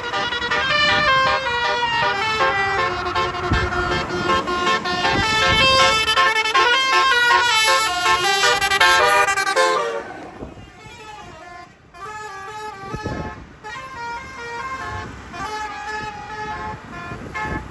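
Tour-bus telolet (basuri) musical air horn playing a tune of held notes that step from pitch to pitch. It is loud for about the first ten seconds, then the tune carries on more quietly.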